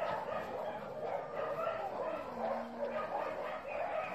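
Dogs barking and yipping, continuous and overlapping.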